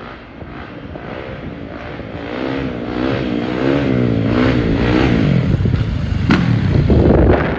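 Four-stroke dirt bike ridden hard, its engine revving up and down again and again, getting louder as it comes closer.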